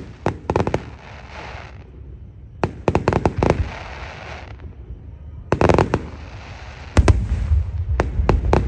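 Fireworks display: aerial shells bursting in about four quick clusters of sharp bangs and crackles, with a heavier run of deep booms near the end.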